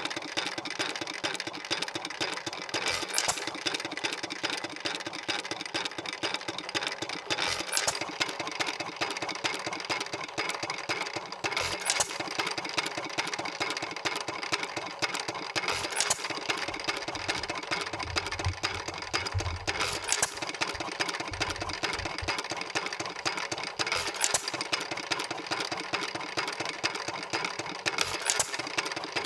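1 1/2 HP Worthington hit-and-miss engine running unloaded: a fast steady mechanical clatter as it coasts, broken by a sharp bang about every four seconds when it fires.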